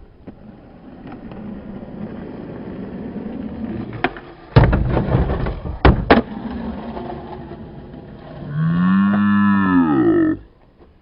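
Skateboard wheels rolling on concrete and growing louder, then sharp cracks and clatter of the board during a trick a few seconds in. Near the end, a long drawn-out shout of about two seconds rises then falls in pitch, like a moo.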